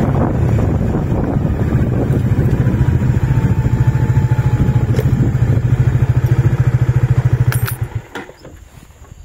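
Motorcycle engine running with an even, steady pulse as it is ridden, then cut off suddenly about a second before the end. A few sharp clicks follow.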